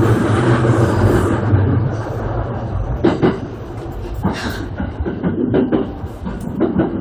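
JR Sobu Line electric commuter train running, heard from the leading car: a steady low hum for about the first two seconds that then fades, followed by scattered knocks and clacks of the wheels over the track.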